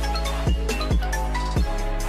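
Electronic music with a deep bass line and a kick drum beating about twice a second.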